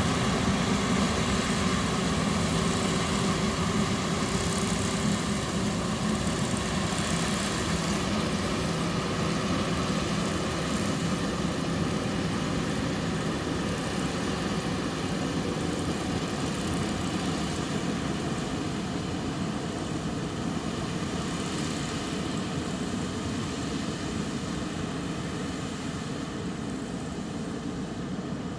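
Combine harvester running steadily while harvesting rice, its engine note even throughout and slowly fading.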